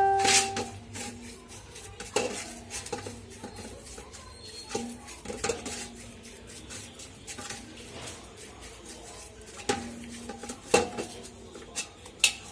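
Metal parts and tools clinking and clanking on and off during hands-on work on an air compressor. A struck metal part rings out and fades in the first half second, and a few sharper knocks come near the end.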